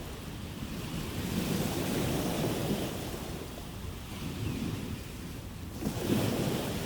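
Ocean surf: waves breaking and washing in. One swell builds about a second in and eases off, then a second wave breaks suddenly near the end.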